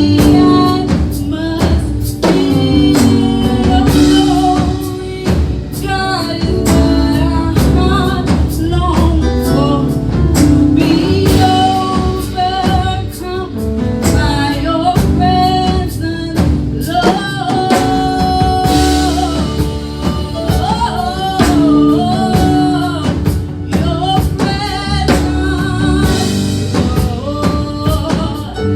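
Gospel worship music: male and female voices singing over a live band with a steady drum beat.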